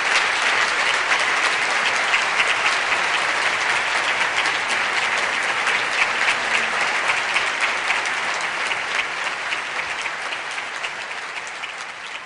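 A large audience applauding, a dense steady crackle of many hands clapping that gradually dies down over the last few seconds.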